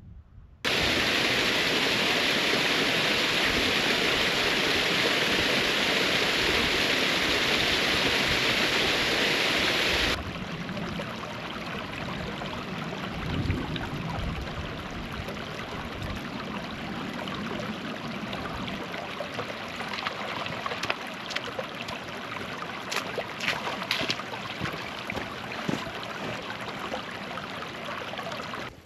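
Shallow stream running over rocks. A steady, loud rush for about the first ten seconds changes suddenly to a quieter babbling with many small splashes.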